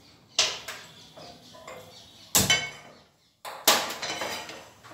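Knocks and clanks of a non-stick frying pan being handled on a gas stove's metal burner grate: three sharp strikes, the middle one loudest with a short metallic ring.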